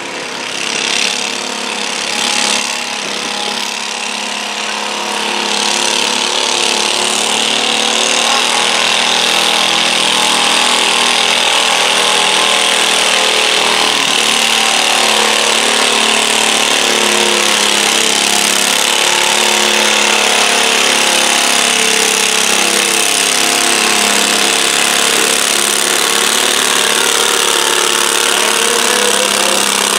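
Garden tractor engine at full throttle under load, pulling a weight-transfer sled. It builds over the first few seconds, then holds loud and steady.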